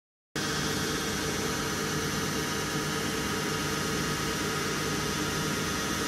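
Lathe turning a metal gear knob under coolant spray: a steady hiss with a machine hum beneath, cutting in abruptly just after the start.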